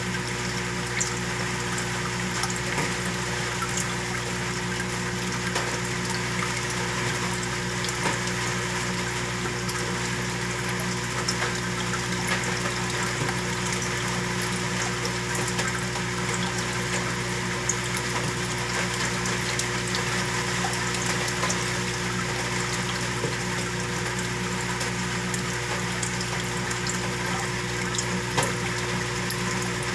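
Aquarium water pump running with a steady hum, over the constant hiss of circulating water with faint ticks of bubbles.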